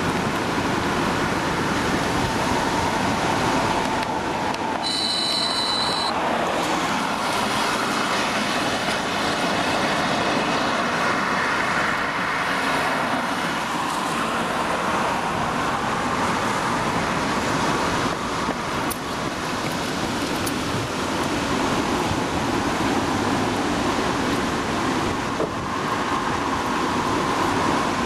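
Road traffic passing steadily, a continuous hiss that swells and fades. About five seconds in, a brief high-pitched sound lasts about a second.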